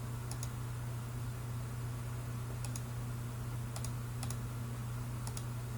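Five quick double clicks of a computer mouse, each a sharp press and release, spread over a few seconds, over a steady low electrical hum.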